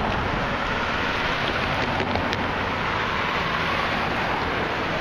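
Steady noise of car traffic passing, tyres and engines.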